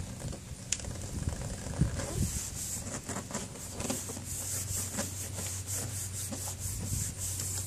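Hands pressing and rubbing a freshly glued step piece down onto an RV running-board step to seat it, with dry scuffing strokes. A few light knocks come in the first couple of seconds, then quicker repeated rubbing.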